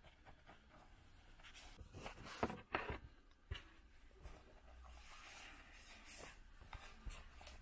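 Cloth rubbing and wiping over a phone's glass, with faint handling noise close to the microphone. A few sharp knocks from the phone being handled come between about two and three and a half seconds in.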